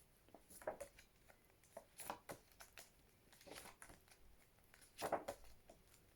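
Faint, irregular rustles and light taps of small paper flashcards being handled and flipped.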